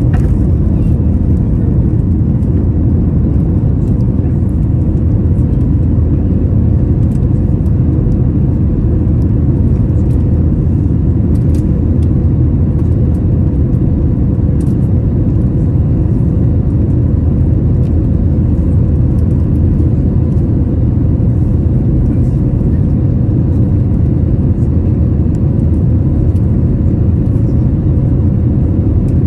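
Cabin noise inside an Airbus A321-231 climbing after takeoff: a steady, loud low rumble from its IAE V2500 engines and the airflow over the fuselage, with a faint steady hum above it.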